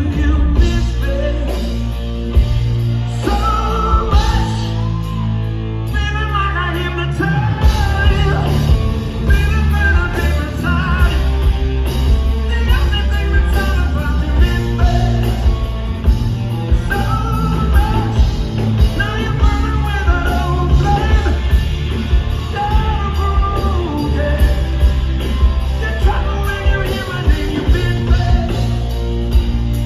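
Live rock band playing loud: distorted electric guitar riff over bass and drums, with the lead singer's vocals coming in about six seconds in.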